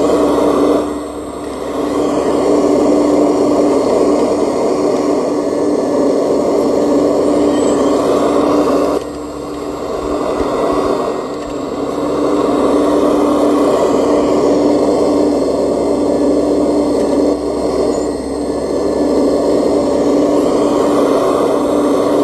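RC Liebherr R970 SME model excavator's motor whining steadily while the arm and bucket work, its level dipping briefly about a second in, at about nine seconds and near eighteen seconds.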